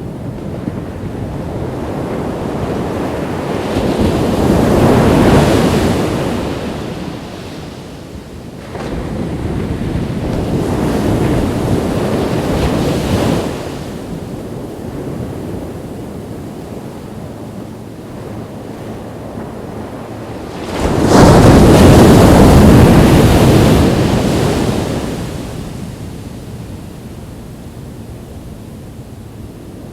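Ocean waves breaking on a beach. The surf swells and fades three times; the loudest wave comes in suddenly about two-thirds of the way through, then dies back.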